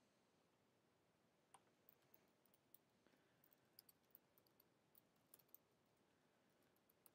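Near silence broken by faint, irregular little clicks, about a dozen or more between one and a half and six seconds in, and another just before the end.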